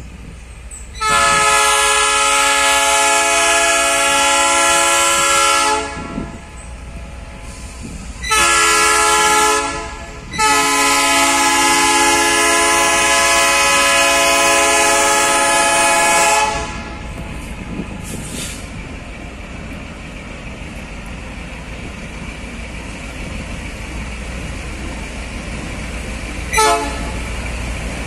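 Multi-note horn of an EMD G22U diesel locomotive sounded in three blasts: a long one of about five seconds, a short one, then a long one of about six seconds. Each is a chord of several steady notes. After the horn the locomotives' diesel engines rumble steadily and grow slowly louder as they approach, with a brief sharp sound near the end.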